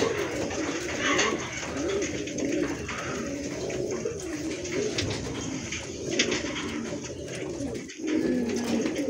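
Fancy pigeons cooing, several low, wavering coos overlapping in a continuous run, with a brief dip about eight seconds in.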